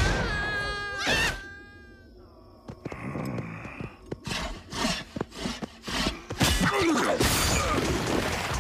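Animated sci-fi sound effects: an energy blast bursts with a high electronic whine that fades away over the first second or two, then after a quieter stretch comes a quick run of sharp hits and whooshes.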